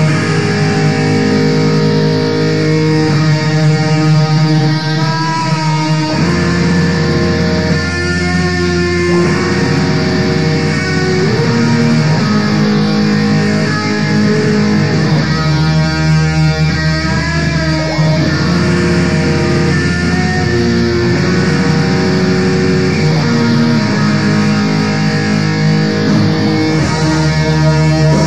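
Raw black metal: distorted electric guitars holding sustained chords over a low bass line, the chords changing every few seconds.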